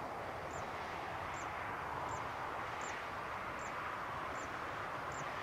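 Airbus A350-941's Rolls-Royce Trent XWB jet engines at low power on landing, a steady rush heard from far off. A bird's short high chirp repeats about every three-quarters of a second.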